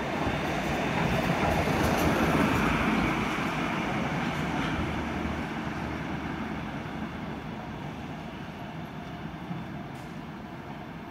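CR4000 tram passing close by on street track, its running noise loudest about two seconds in and then fading steadily as it moves away.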